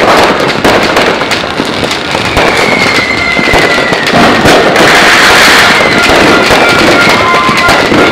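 Fireworks and firecrackers going off densely, a continuous crackle of many rapid bangs. From about two seconds in, a long high tone slowly falls in pitch through the noise.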